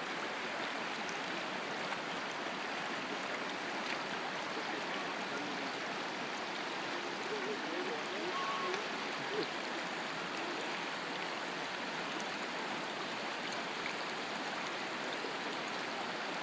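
Shallow river rippling steadily over a gravel riffle, a constant rush of moving water.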